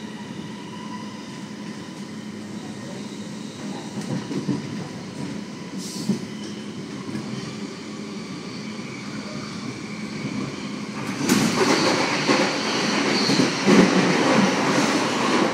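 Cabin of a Sydney CityRail electric suburban train running at speed: steady rumble of wheels on the rails. About eleven seconds in it grows louder and fuller as another train passes close alongside.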